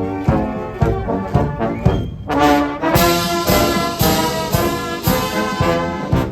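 Military marching band playing a march: brass and bugles over a steady drum beat of about two strokes a second, with the full brass coming in louder about two seconds in.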